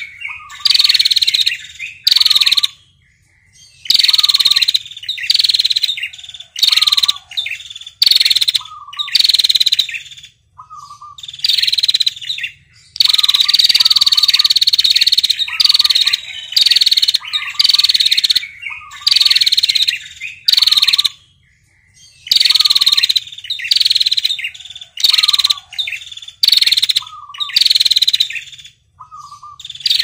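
A caged female ashy tailorbird (prenjak kepala merah) giving its long rattling trill over and over, each trill about half a second to a second long and often led by a short lower note, with brief pauses between. One longer trill runs about two seconds near the middle.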